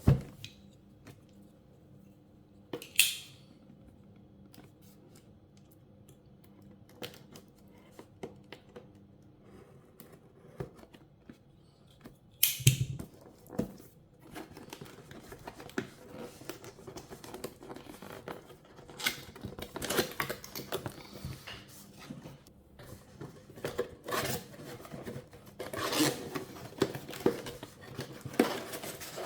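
A cardboard box being opened and its packaging handled: scattered taps, scrapes and rustles, with two short, louder rips, about three seconds in and about twelve seconds in.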